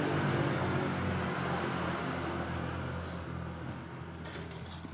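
Suzuki Crystal motorcycle engine running with its clutch cover off, a steady low hum that gradually fades. The kick starter is engaging again after the clutch pressure plate and its ring were refitted in the right order.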